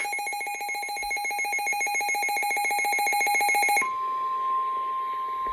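Weather alert radio sounding a warning alert: a rapid trilling electronic alarm beep, then about four seconds in it switches to a steady single-pitch tone, the NOAA Weather Radio alert tone that comes before a warning broadcast.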